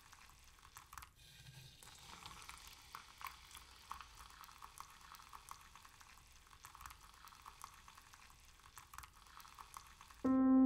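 Single-serve coffee maker dispensing a thin stream of coffee into a ceramic mug: a faint, steady hiss with small crackles. A piano chord comes in just before the end.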